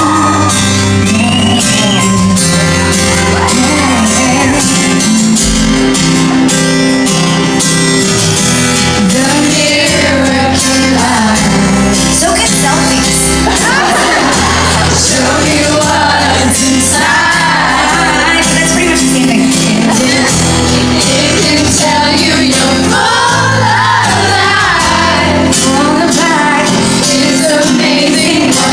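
A live pop song played loud through a concert hall's PA: a band with drums and bass under a woman's lead vocal.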